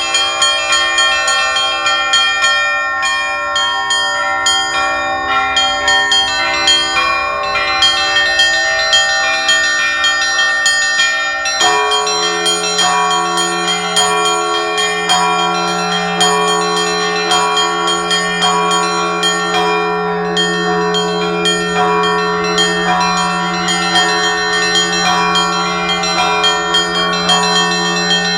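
Russian Orthodox church bells in a belfry ringing a festive peal: several small bells struck in quick, continuous patterns over larger ones. About twelve seconds in, a deeper bell starts and hums on underneath.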